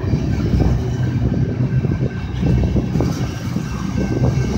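Freight cars carrying shipping containers rolling past on steel rails: a steady low rumble of wheels on track with frequent irregular clanks and clicks.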